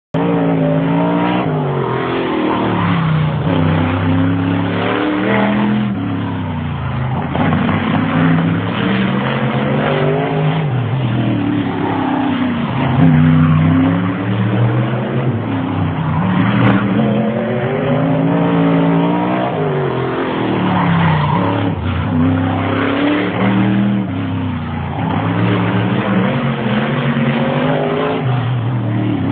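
Outlaw Figure 8 race car's engine running hard through a practice lap, its pitch rising and falling again and again as it accelerates and lifts off.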